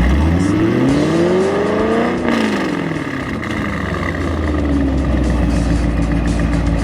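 2000 C5 Corvette's LS1 V8 through a Billy Boat PRT performance exhaust, revved once: the pitch climbs for about two seconds, falls straight back, then settles into a steady idle.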